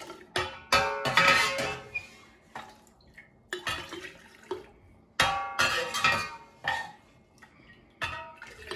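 A ceramic mug clinking and scraping against a metal saucepan as it scoops liquid, and the liquid being poured into a glass jar. The sounds come in several separate bursts, each starting suddenly and dying away over about a second.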